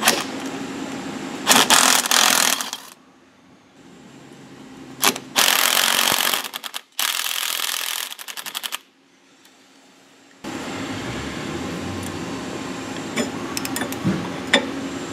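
Cordless DeWalt impact driver hammering in three short bursts, about one and a half, five and a half and seven seconds in, as it works the bolts of a forklift wheel hub loose. A steady background hum runs under it, and a few sharp clicks come near the end.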